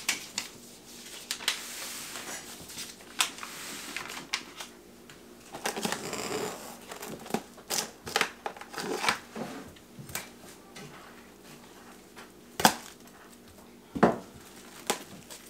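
Plastic cling wrap pulled off its roll and crinkling as it is handled, among scattered knocks and rustles on the countertop. There is a longer tearing rustle about six seconds in and two sharp knocks near the end.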